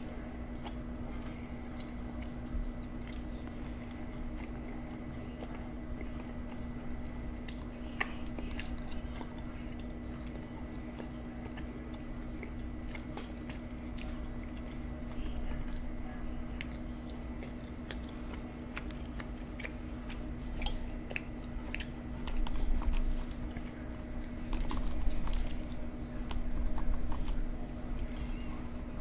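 Close-miked chewing and mouth sounds of eating deep dish pizza, with small sharp clicks of a fork. It gets louder in the last third, with the fork cutting and scraping on the plate. A steady low hum runs underneath.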